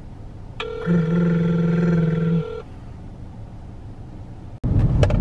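Steady electronic tones from a phone on speaker while the call waits to be transferred: a held tone sounds for about two seconds, then stops. Near the end there is a sudden cut to the low, steady rumble of a car driving.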